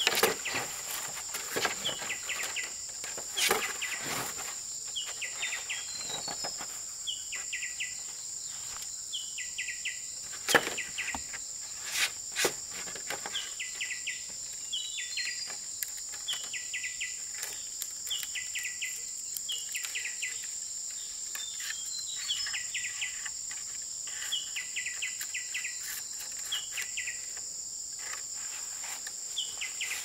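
Insects droning steadily at a high pitch, with a short chirping call repeating every second or two. A few sharp knocks stand out, the loudest about ten and twelve seconds in.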